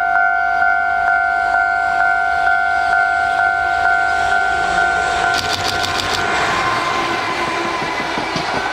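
A level-crossing warning bell rings as a steady two-note electronic tone, pulsing about twice a second, and stops about five seconds in. A JR Freight EF210 electric locomotive hauling container wagons then passes close by, with a quick run of wheel clicks over the rail joints as it goes by.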